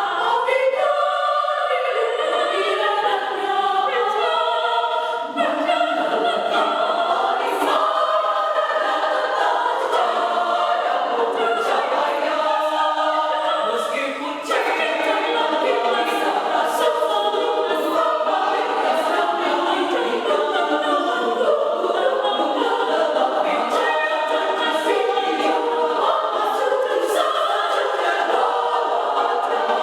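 A small women's church choir singing in parts, one continuous song with brief pauses between phrases about five and fourteen seconds in.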